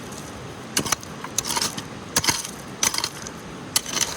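Metal digging tools at work in gravelly ground: a series of sharp metallic scrapes and clinks, about five in four seconds.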